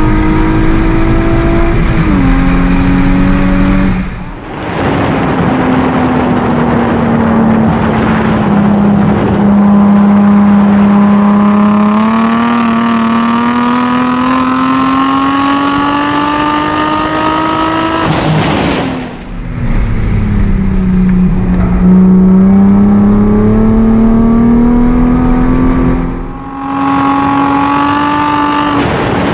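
Nissan 350Z's V6 engine pulling hard on a flying track lap, heard from outside the car. Its pitch climbs through long rising sweeps and falls back in between, with three short drops in loudness.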